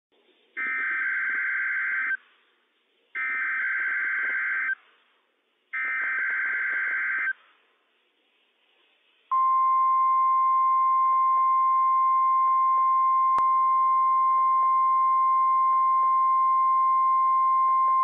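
NOAA Weather Radio test signal: three bursts of SAME digital header data, each a warbling data tone about a second and a half long with short gaps between, then, about nine seconds in, the steady 1050 Hz warning alarm tone.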